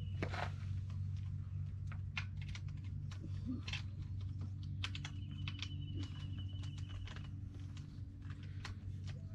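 Irregular light clicks and taps of a key being fumbled at the key lock of a Lectric XP 3.0 e-bike, over a steady low hum.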